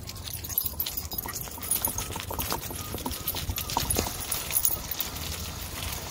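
Gotway MSX electric unicycle riding over bumpy grass: a steady low rumble with many irregular clicks and light metallic jingling throughout.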